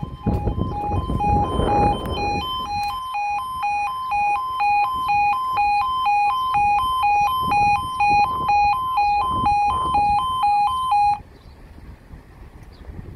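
Railway level crossing audible warning (yodel alarm): an electronic alarm switching back and forth between two pitches while the crossing is closed to road traffic, then cutting off sharply about eleven seconds in. A low rumble of wind or traffic runs under it during the first couple of seconds.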